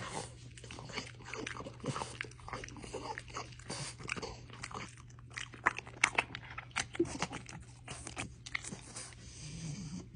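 French bulldog chewing a crunchy treat: a run of irregular crunches and clicks of the jaws.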